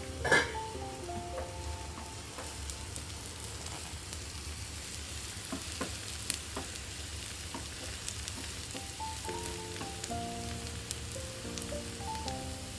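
Chopped onion and garlic sizzling in oil in a frying pan, stirred with a wooden spatula, with small scraping clicks and one sharp knock right at the start. Soft background music plays over it at the start and again in the last few seconds.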